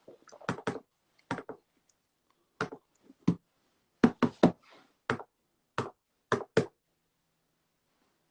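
About a dozen short, sharp knocks at irregular intervals, several coming in quick pairs.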